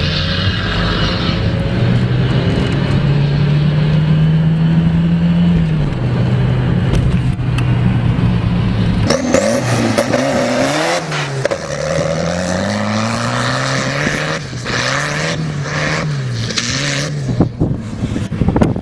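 A vehicle engine running steadily, heard from inside a car cabin. About halfway through the sound changes to a tractor engine revving up and down over and over, its pitch rising and falling with each rev.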